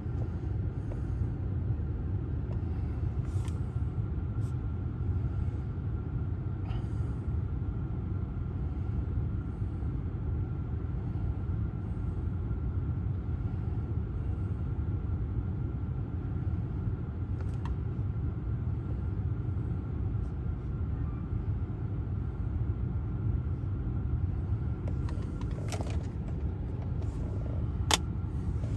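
Steady low mechanical rumble with a faint, steady high whine over it and a few light clicks.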